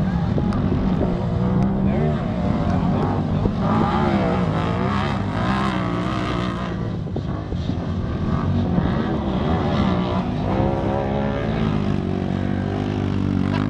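Several side-by-side UTV engines racing together, their overlapping engine notes rising and falling as the drivers rev and back off.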